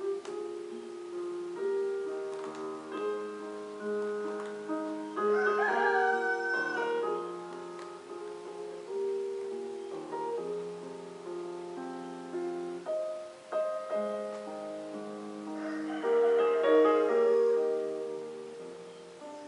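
Background music: piano or keyboard chords played in long held notes, starting abruptly. A higher wavering melody comes in over them twice, about five seconds in and again near the end.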